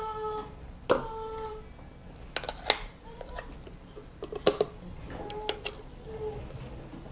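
A spoon scraping and knocking inside a plastic blender cup of puréed rice and carrot: a string of sharp clicks and taps, with a few short squeaky tones between them.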